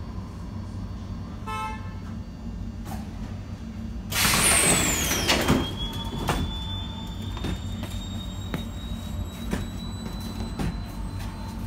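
Light-rail tram standing at a stop with a steady low hum, a short beep about a second and a half in, then a loud hiss with a falling whistle lasting about a second and a half as the doors open. Afterward a thin faint tone and a few light clicks.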